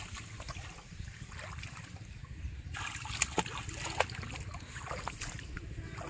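Small splashes and trickles of shallow water as a child wades and feels through it with his hands, with a couple of sharper splashes about halfway through, over a low steady rumble.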